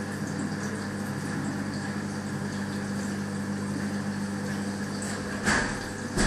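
Aquarium sump system running on its first start-up: a steady pump hum with water flowing and trickling through the sump. Two short, louder rushes come about five and a half and six seconds in.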